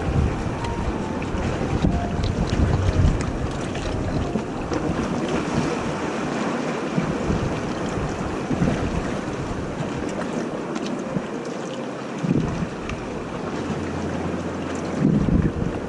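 Wind buffeting the microphone over sea water washing and lapping among shoreline rocks, with a couple of stronger gusts near the end.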